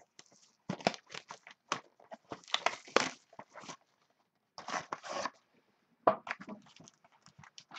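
Sealed trading card boxes being opened by hand: wrapping and cardboard tearing and rustling in short, irregular bursts.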